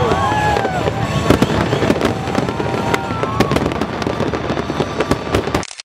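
Fireworks display at its height: a dense run of shell bursts and crackles with sliding whistling tones over them. The sound cuts off abruptly near the end.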